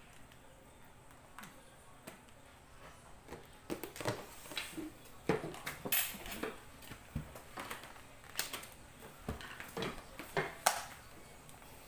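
Small plastic food tubs being handled on a table: lids pressed and snapped on, tubs set down and stacked. It comes as a run of irregular light clicks and knocks starting a few seconds in.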